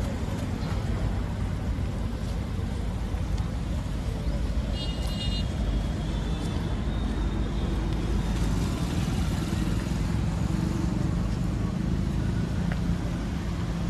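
Steady low rumble of vehicles and traffic, with a short high-pitched beep about five seconds in.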